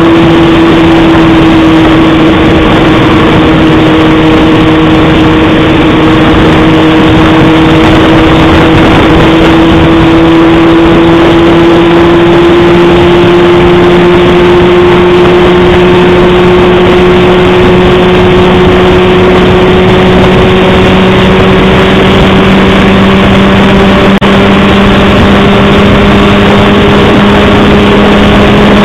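Honda CBR600RR's inline-four engine running at a steady cruise, its note climbing slowly as the bike gently gains speed, over a loud constant rush of wind and road noise.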